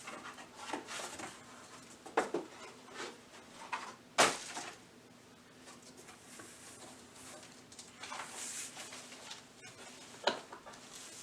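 Packaging and parts being handled during an unboxing: rustling with a few sharp knocks, the loudest about four seconds in and another near the end.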